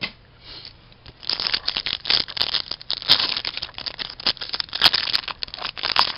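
The wrapper of an Upper Deck MVP hockey card pack crinkling and tearing as it is opened. A dense crackle with sharp snaps starts about a second in.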